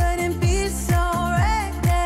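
Background music: electronic pop with a steady kick-drum beat, about two beats a second, under a sliding melody line.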